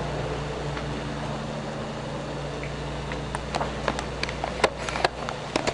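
A steady low electrical-sounding hum, with a scatter of sharp clicks and taps in the second half.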